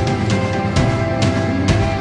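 Background music with a steady beat: sustained notes under evenly spaced percussive hits, about two a second.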